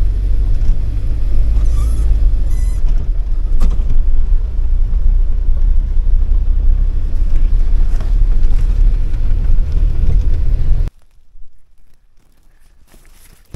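Low rumble of a UAZ off-road vehicle on the move, with a few sharp knocks and rattles. It cuts off abruptly about eleven seconds in, leaving only faint clicks and rustles.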